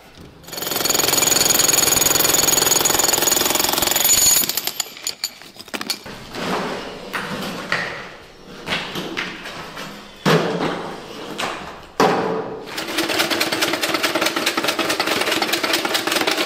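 Impact wrench hammering in two long bursts, starting about half a second in and again after about twelve seconds, undoing the bolts of a bracket on the exhaust. Scattered metal knocks come between the bursts.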